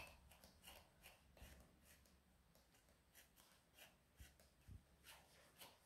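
Near silence, with a scattering of faint, brief rustles from a metal comb being drawn through a cat's long tail fur.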